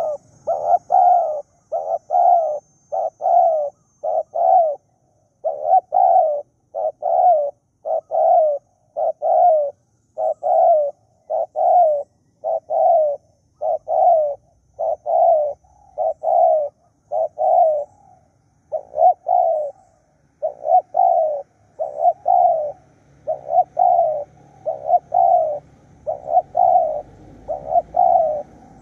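Spotted dove cooing: a long, loud run of short coos, about three every two seconds, with a couple of brief pauses.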